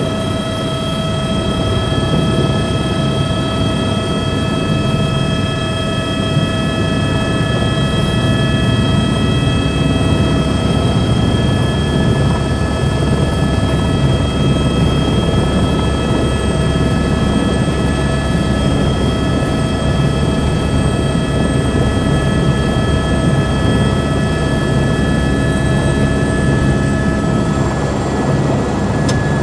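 Helicopter in flight heard from inside its cabin: steady engine and rotor noise with a constant high whine, which dips slightly in pitch near the end.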